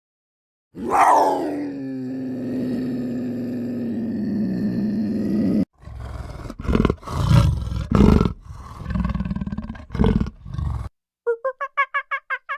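Wild animal calls: one long call that drops in pitch and then holds steady for about five seconds, cut off suddenly, followed by a string of deep roars and growls. Near the end a different animal starts a fast, even pulsing call.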